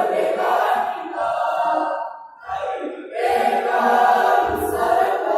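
A choir singing, in two phrases with a brief break between them about two seconds in.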